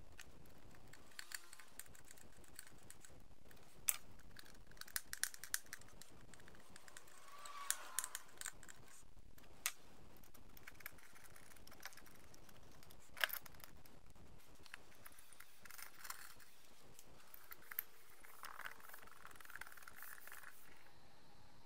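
Small metal parts of a balance scale's frame clicking and tapping as they are fitted by hand: scattered light clicks and clinks, with a handful of sharper ones spread through.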